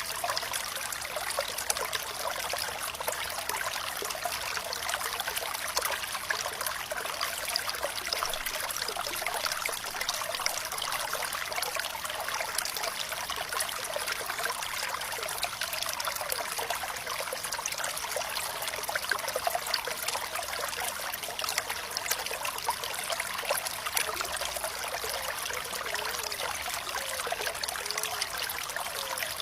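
Running water trickling and splashing steadily, with small bubbling gurgles.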